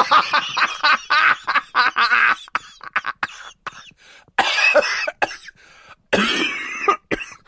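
A person's voice in a rapid series of short bursts, dense for the first two seconds or so, then fading, with two more clusters about four and a half and six seconds in.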